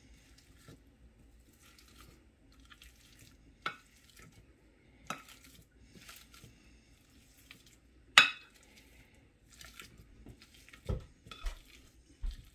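Metal potato masher working boiled potatoes in a glass bowl: soft mashing broken by a few sharp clinks of the masher striking the glass, the loudest about eight seconds in.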